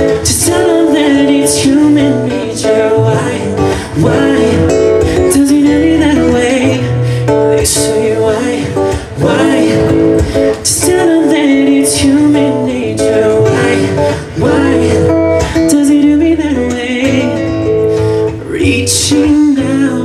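Live band music led by an acoustic-electric guitar being strummed and plucked, with singing over it.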